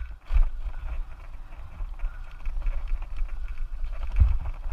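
Bicycle rolling fast over a rough dirt trail, heard from a handlebar-mounted camera: a steady low rumble of wind and vibration on the microphone, with the bike rattling and knocking over bumps, a sharp knock a moment in and another near the end.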